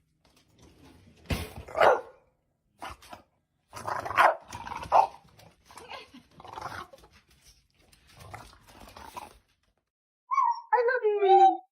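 A dog barking, a string of short barks at irregular intervals. Near the end comes a drawn-out cry that falls in pitch.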